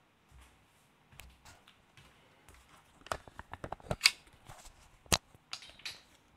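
Handling noise from the camera being picked up and carried: scattered clicks and knocks, with a quick run of taps about three to four seconds in and a sharp click about five seconds in.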